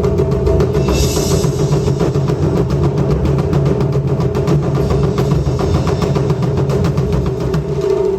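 Japanese taiko drums played fast by an ensemble, a dense run of strokes over a held pitched note, with a brief bright crash about a second in.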